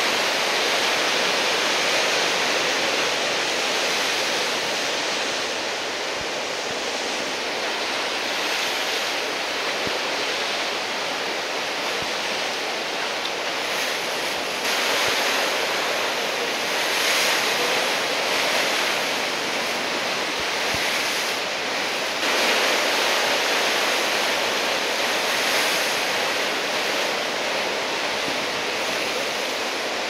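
Heavy typhoon-driven surf breaking and washing ashore: a steady rush of whitewater that swells louder a few times, as sets of waves break.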